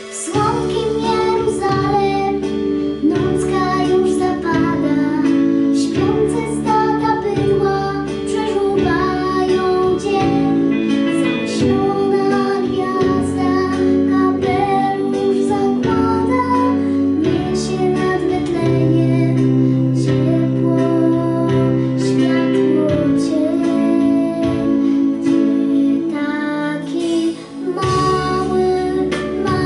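A young girl singing a Polish Christmas carol (kolęda) solo over a recorded instrumental backing track with a steady bass line.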